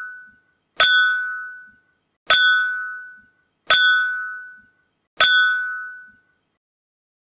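A ringing clink sound effect struck four times, about a second and a half apart. Each strike is identical and rings out for about a second before fading.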